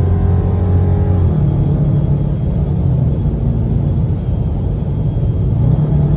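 Dodge Charger R/T's 5.7-litre HEMI V8 running under way, with road rumble; the engine note changes pitch about a second in.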